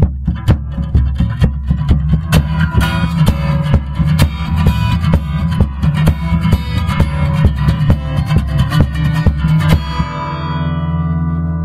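Closing theme music: guitar and bass over a steady drum beat, stopping about ten seconds in on a held chord that rings out.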